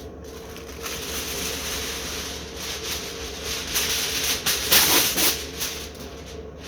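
Aluminium foil being pulled off the roll and spread out, a rustling crinkle that is loudest about five seconds in.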